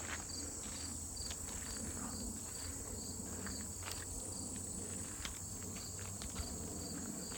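Insects calling: a steady high drone with a short, regular chirp repeating a few times a second.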